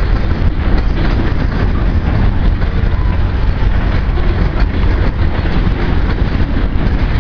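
Covered grain hopper cars of a heavy freight train rolling past close by: a steady, loud rumble of steel wheels on rail, with irregular clicks from the wheels and couplers.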